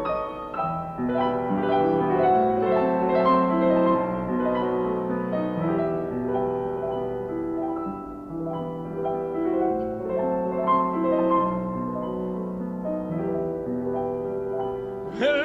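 Piano playing a solo interlude of chords and melody between verses of a slow song. A tenor voice with wide vibrato comes back in at the very end.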